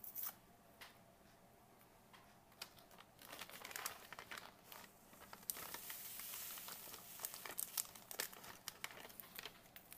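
Faint crinkling and tearing of MRE packaging by hand: a few small ticks as a paper salt packet is picked open, then denser rustling and crinkling of plastic packaging, heaviest a little past the middle.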